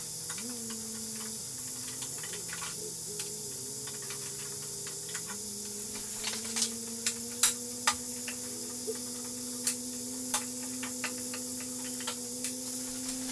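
Screws and hand tools clicking and tapping while the Y-axis linear rail of a Wanhao Duplicator i3 3D printer is unscrewed. The clicks are scattered and sharp, louder and more frequent from about six seconds in, over a steady hiss and a faint hum.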